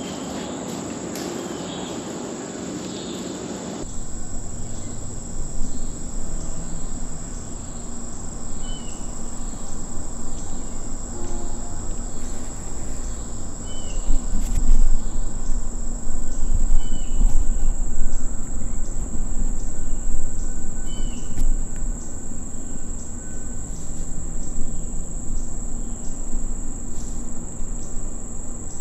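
Steady high-pitched drone of crickets and other insects, with a bird's short chirp every couple of seconds. Low rumbling and knocks up close grow loudest about halfway through.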